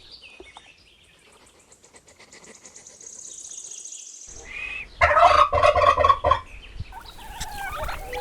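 Faint, high, rapid chittering for the first few seconds, then from about five seconds in a domestic turkey gobbling loudly in quick warbling bursts, calling again near the end.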